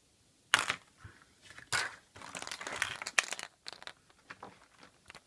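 Surprise-egg wrapper being crinkled and torn open by hand: a sharp rustle about half a second in, another near two seconds, then a spell of crinkling followed by scattered small clicks and rustles.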